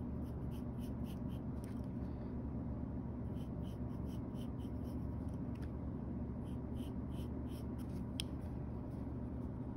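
Graphite pencil scratching on sketchbook paper in short repeated strokes, about three a second, over a steady low hum.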